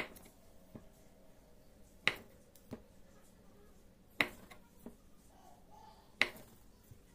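A kitchen knife cutting through a block of luncheon meat and knocking on a wooden cutting board: four sharp knocks about two seconds apart, each followed by a fainter tap.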